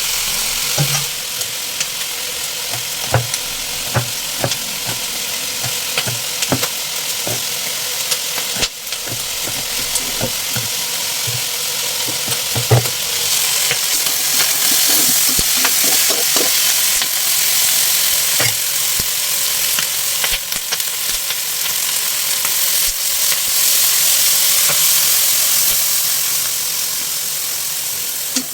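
Chicken feet sizzling in a hot pan for adobo while being stirred, with scattered short clicks and knocks of the utensil against the pan. The sizzle grows louder about halfway through.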